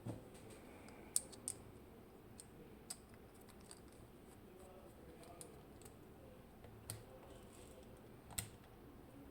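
Sparse light clicks and taps of tools against a Medeco M4 lock as its disassembly begins, a handful of separate clicks spread over several seconds, the sharpest about a second in.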